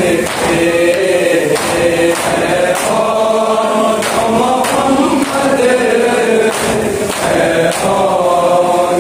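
A group of men chanting a Shia mourning noha in unison, with a steady beat of hands striking chests (matam) about once a second.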